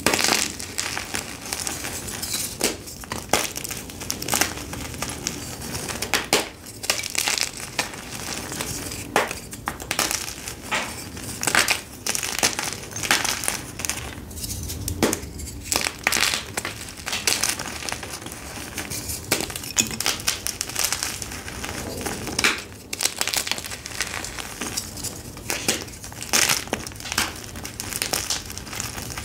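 Hands crushing and snapping blocks of dyed soft gym chalk (Jenny's Choice Soft): an irregular run of crunches and sharp snaps as the blocks break and crumble.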